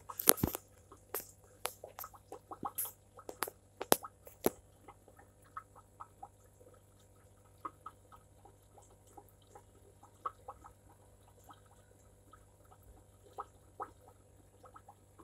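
A low steady aquarium hum under irregular sharp clicks and ticks, which come thickest in the first five seconds and thin out after that.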